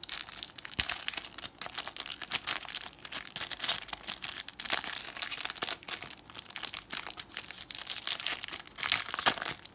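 Foil wrapper of a Panini Adrenalyn XL trading-card pack being torn open and crinkled by hand: a continuous run of crackling and crinkling.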